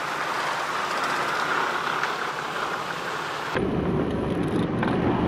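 An even hiss, then after an abrupt change about three and a half seconds in, the low rumble of a four-wheel drive driving over a sandy track, heard from inside the cab.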